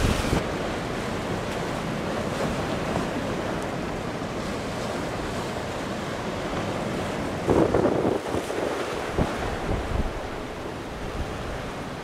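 Ocean surf breaking and washing, with gusty wind buffeting the microphone in irregular low gusts, one stronger gust a little past the middle.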